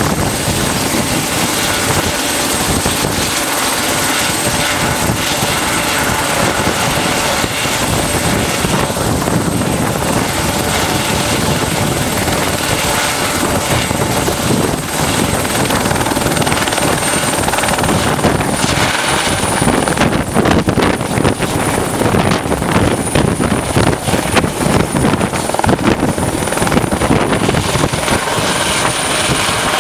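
Eurocopter EC120 Colibri helicopter running with its rotors turning, its Arrius turboshaft giving a steady high whine. About two-thirds of the way through, the whine climbs slightly in pitch and the rotor sound turns pulsing and uneven as power comes up toward lift-off.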